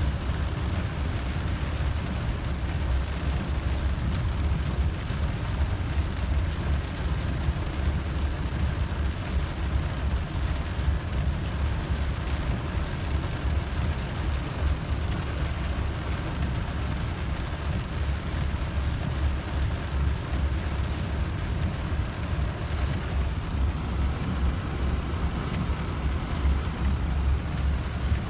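Steady in-cabin rumble of a vehicle driving through floodwater over the road, with a constant hiss of water and rain.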